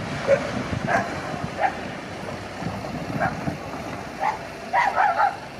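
A dog barking: short barks every second or so, with a quick run of several near the end.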